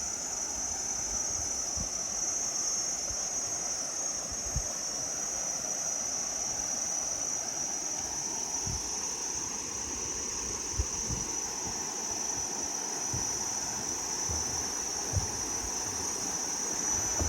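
Steady high-pitched drone of forest insects, with a soft rushing haze beneath it and a few brief low thumps.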